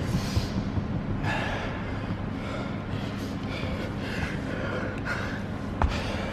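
A man breathing hard in quick gasps, about one breath a second, winded from a dumbbell workout. A single sharp knock near the end.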